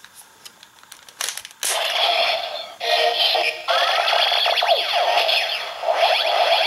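Punch Hopper Zecter transformation-belt toy playing its electronic transformation sound effects, with sweeping synthesised tones. A few faint handling clicks come first, and the toy's sound starts about a second and a half in.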